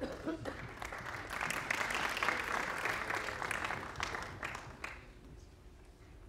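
Audience applauding. The clapping swells over the first couple of seconds and dies away about five seconds in.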